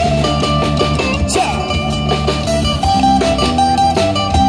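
Live band playing an instrumental passage of a song: a guitar carrying a melody of short changing notes over bass and a drum kit keeping a steady beat.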